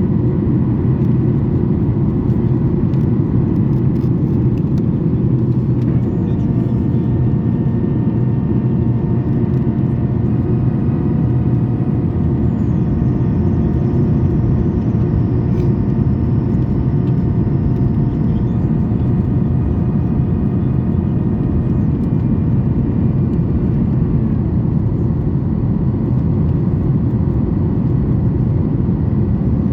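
Steady cabin roar of a Boeing 737 MAX 8 in flight, jet engines and airflow heard from a seat over the wing. A set of faint whining tones comes in about a quarter of the way through, one high whine dipping and then rising again, and fades before the end.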